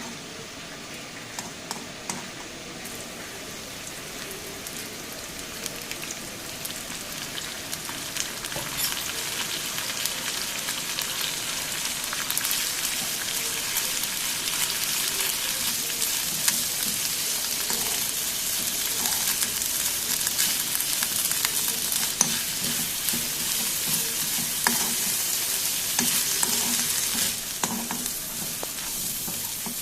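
Ingredients frying in a pan: a steady sizzle that builds over the first ten seconds or so and eases a little near the end, with a spoon stirring and scattered clicks against the pan.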